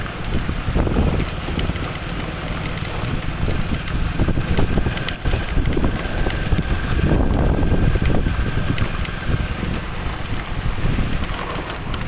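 Wind buffeting the microphone in a heavy low rumble, with motorcycle engines passing along a dirt road and swelling around a second in and again past the middle.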